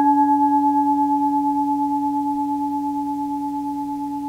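A struck Buddhist bowl bell ringing on: one deep tone with higher overtones above it, fading slowly with a slight pulsing waver.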